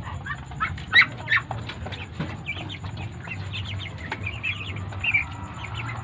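A flock of 45-day-old broiler chickens peeping and chirping, with many short high calls overlapping. There are a couple of sharp knocks about a second in, and a steady low hum underneath.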